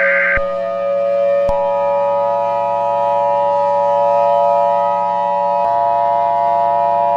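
Civil defense siren sounding a steady multi-tone note, its pitch rising slightly at first and then holding; a short higher beep ends just after the start, and further tones join with a click about a second and a half in.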